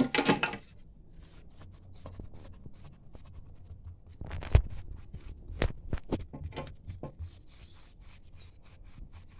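Hands rolling a lump of fekkas dough into a log on a marble countertop: a soft, steady rubbing made of many faint ticks. There is a short clatter at the very start, and a sharper knock about four and a half seconds in, the loudest sound.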